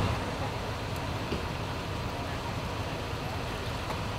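Fire engine idling at a standstill: a steady low engine hum under a wash of street noise.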